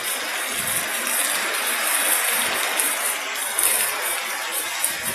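Heavy rain pouring down in strong wind, a steady rushing hiss.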